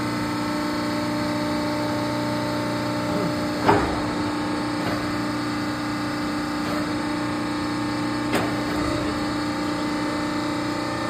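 The hydraulic power unit of a DAVI CNC four-roll plate roll running with a steady hum while the hydraulic side-support arm tilts up. A sharp clunk comes about a third of the way in and a lighter one near the end.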